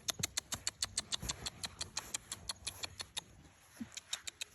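A rapid series of small, sharp clicks or taps, about eight a second, that pauses about three seconds in and then resumes with a few more.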